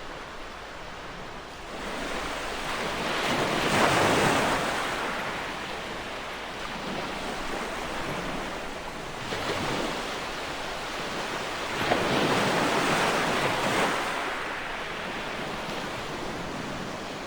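Ocean waves breaking on a shore, a steady wash that swells and ebbs, with the biggest waves crashing about four seconds in and again around twelve seconds in.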